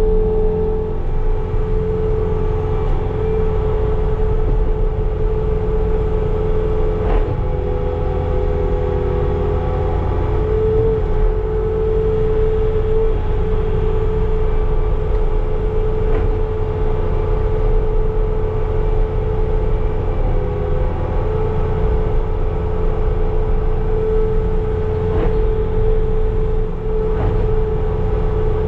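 Bobcat T66 compact track loader running steadily under load with its snow blower attachment, heard from inside the cab: a low engine rumble with a steady whine over it.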